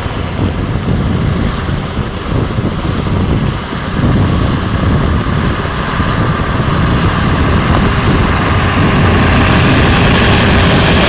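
Scania heavy truck's diesel engine pulling a long road train of rail-laden trailers, coming closer and passing by. It gets louder through the second half as the cab and then the trailer tyres roll past.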